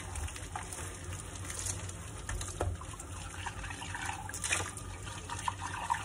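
Kitchen tap running into a sink while a porcelain cup is hand-washed under the stream, with a few light knocks of the crockery.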